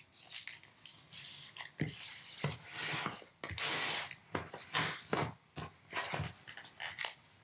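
Cardboard packaging of an Apple Pencil 2 box being handled: papery rustling and scraping as the inner tray slides out of its sleeve, with one longer slide about halfway through. Several light knocks come as the cardboard pieces are set down on the table.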